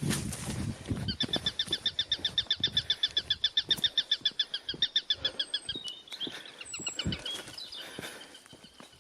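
A bird's fast trill: one high note repeated about eight or nine times a second for roughly five seconds, then a few scattered chirps and whistles.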